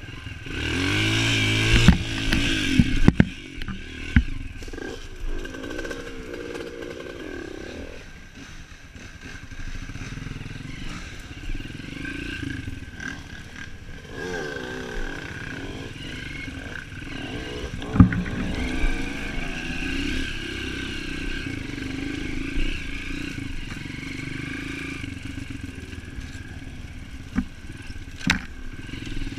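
Off-road motorcycle engine revving hard at first, then running on at low, varying revs as the bike picks its way along a rough dirt trail, with occasional sharp knocks and clatter from the bike over bumps.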